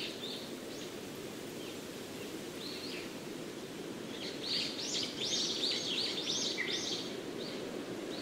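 Small birds chirping and singing over a steady, low outdoor background, with a quick run of rising-and-falling chirps in the middle.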